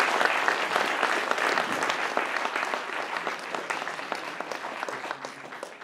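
Audience applauding, a dense patter of many hands clapping that gradually dies away toward the end.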